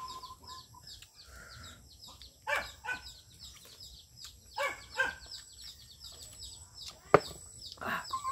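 Birds chirping outdoors: a fast series of short high chirps, about four a second, with a few short lower calls and a sharp click about seven seconds in.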